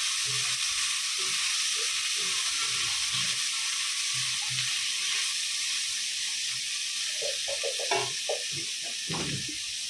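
Bombil (Bombay duck) frying in hot oil in a steel kadai, sizzling steadily while a slotted spatula stirs it, with light scrapes against the pan. The fish is being fried until crisp.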